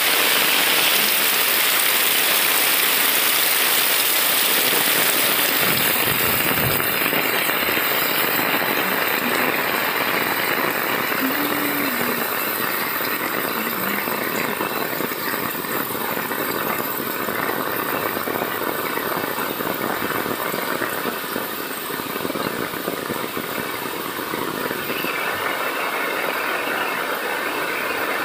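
Heavy rain pouring steadily, with muddy rainwater rushing along the ground in a runoff stream; a steady, even rushing that grows slightly less hissy about eight seconds in.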